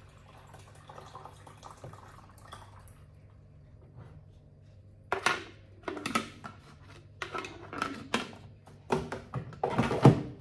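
Faint water pouring at first, then a run of about six short, loud clunks and rattles from about five seconds in as the plastic carafe and lid of a Severin drip coffee maker are handled and fitted.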